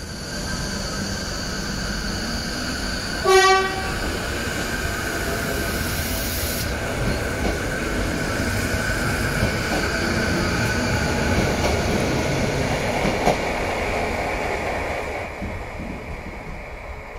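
Renfe class 449 Media Distancia electric train pulling out of a station. It gives one short horn blast about three seconds in, then keeps up a steady running noise with a motor whine as it moves off. The noise falls away near the end as the train leaves.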